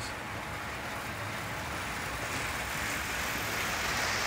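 Hornby live steam model locomotive Papyrus running with a train of about 13 coaches: a steady hiss and rolling of wheels on the rails, growing louder as the train comes near.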